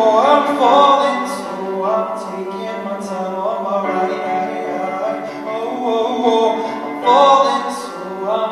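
A man singing a song while accompanying himself on piano.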